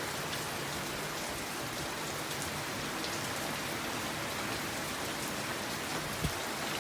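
Heavy typhoon rain falling steadily, with a single brief low thump near the end.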